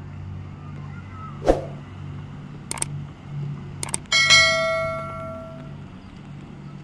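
Subscribe-button animation sound effect: a brief whoosh about a second and a half in, two quick pairs of mouse clicks, then a notification bell ding just after four seconds that rings out for about a second and a half. A steady low hum runs underneath.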